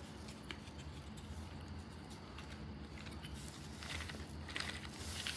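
Paper model four-cylinder radial air engine running on air fed through a tube: a faint, soft pattering clatter over a steady low hum.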